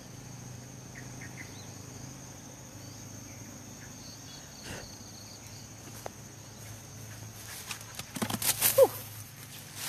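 Steady high insect trilling with a few faint bird chirps about a second in. Near the end, loud rustling and crashing through leafy undergrowth as a dog runs through the plants, with one short rising-and-falling cry.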